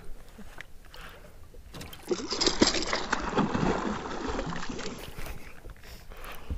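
Hooked bass thrashing at the surface beside the boat: a burst of splashing starts about two seconds in and lasts about three seconds, over quiet water lapping.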